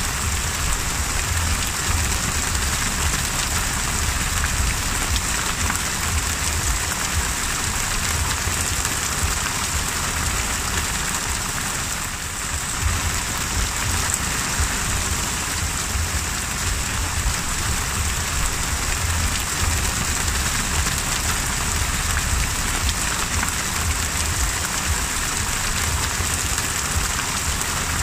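Heavy rain falling on the open sea surface: a steady, dense hiss of drops on water, with a low rumble underneath.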